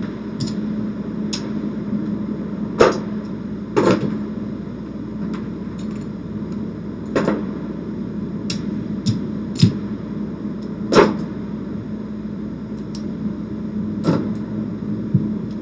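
Casino chips clacking against each other and on the felt as bets are taken down from a craps layout after a seven-out: a dozen or so separate clicks, a few louder ones, over a steady low hum.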